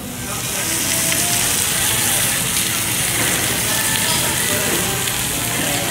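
Thin slices of beef belly sizzling on a tabletop Korean barbecue grill, a steady hiss heard close up.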